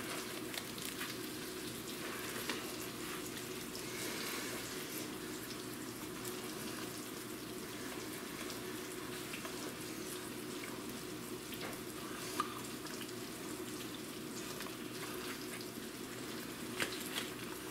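Sausage, peppers and onions sizzling steadily in a frying pan, with a couple of light clicks in the second half.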